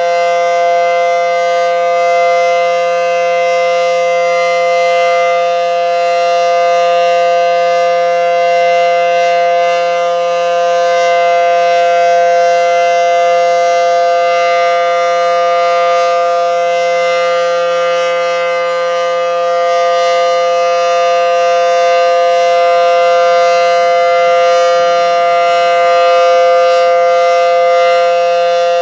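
Federal Signal SD10 dual-tone outdoor warning siren sounding a steady chord at a constant pitch during its monthly test, with slight swells in loudness.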